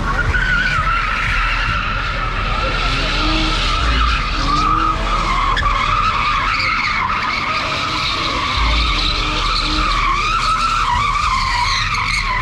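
Car tyres squealing without a break as a sedan spins donuts, the high squeal wavering in pitch. The engine revs rise and fall underneath.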